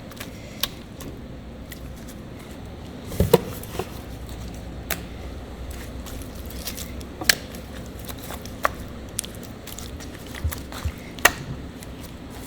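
Scattered sharp clicks and knocks, about a dozen at irregular intervals, over a low steady background. The loudest is a heavier double knock about three seconds in.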